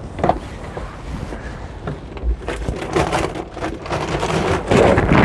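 Knocks and clatter as a cockpit seat locker on a sailboat is opened and rummaged through, over gusty wind rumbling on the microphone. The clatter is loudest near the end.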